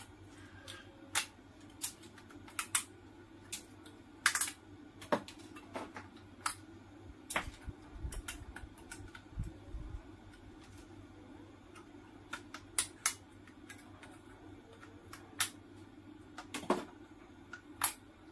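Pliers gripping and tearing the spot-welded nickel strip tabs off the cells of a DeWalt power-tool battery pack: many irregular sharp clicks and snaps over a steady low hum, with a few dull low thumps about eight to ten seconds in.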